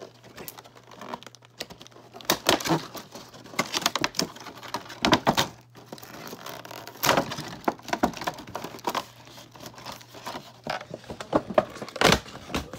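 Cardboard doll box and its clear plastic window packaging being handled and opened: crinkling and rustling in irregular spells, with sharp clicks and knocks from handling.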